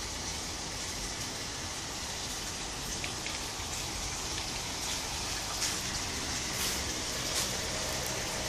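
Steady hiss of water with a few faint taps.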